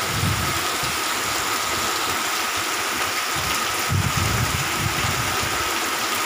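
Heavy monsoon rain pouring steadily onto paving, puddles and trees. Low gusty rumbles of wind on the microphone come about half a second in and again from about three and a half to five seconds.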